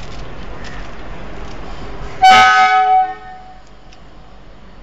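A single loud train horn blast about two seconds in, lasting about a second before dying away, over steady background noise.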